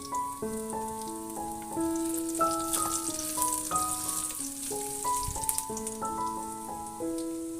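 Food sizzling and crackling as it stir-fries in a hot pan, with soft piano background music.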